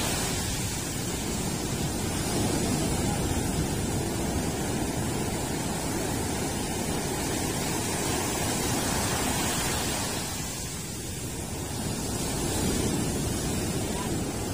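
Rough sea surf washing in, a steady rushing noise that eases briefly about ten seconds in and then builds again.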